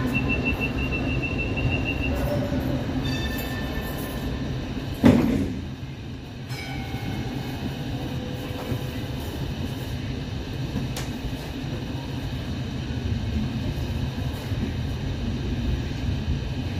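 Hong Kong Light Rail first-generation car: a door warning beeps rapidly, the doors shut with a loud thud about five seconds in, and the car then runs on with a steady rumble of motors and wheels and a faint motor whine.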